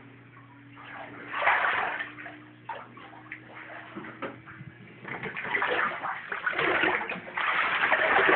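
Footsteps wading and sloshing through shallow floodwater on an indoor floor. The splashing comes in a short burst about a second and a half in and then runs almost continuously through the second half. A faint steady hum sits under the first few seconds.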